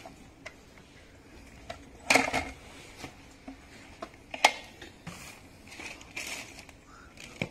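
Knocks, clicks and rattles of a FUNDOT/EVERCROSS HB23 electric scooter being moved and handled during disassembly, loudest as a rattling knock about two seconds in and a sharp click about four and a half seconds in.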